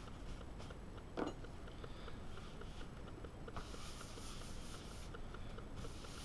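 A short knock about a second in, then a kitchen towel wiping oil into a bamboo cutting board: a dry rubbing swish that starts about three and a half seconds in, breaks off briefly and resumes.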